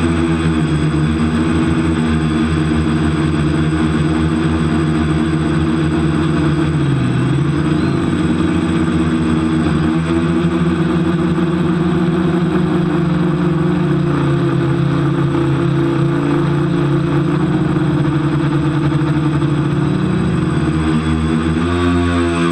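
TBS Discovery quadcopter's brushless motors and propellers running with a steady multi-tone buzz, heard close up from the camera on the frame, its pitch dipping twice as the throttle is eased and climbing near the end. One propeller is damaged, according to the uploader.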